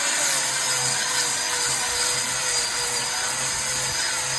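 Electric power tool polishing the surface of laterite stone: a steady, even grinding noise over a constant motor whine.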